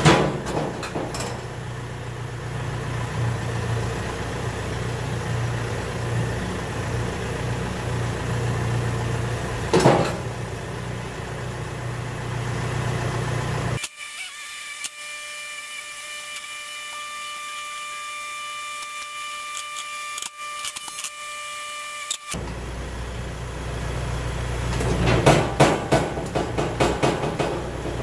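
Kioti RX7320 tractor's diesel engine running steadily while its quick-attach three-point hitch is raised into a rotary tiller, with a single knock about ten seconds in. For several seconds in the middle the engine sound drops away under a steady high whine. Near the end it returns with a quick run of metal clanks.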